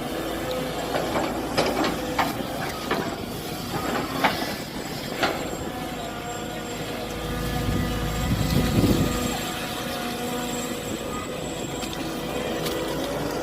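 Mini excavator at work: its engine runs steadily with a held tone, several sharp metallic knocks and clanks come in the first five seconds, and the engine swells louder under load about eight seconds in.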